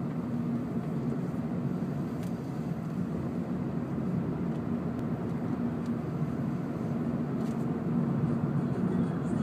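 Steady low engine hum and road rumble from a car driving at moderate speed, heard from inside the closed cabin.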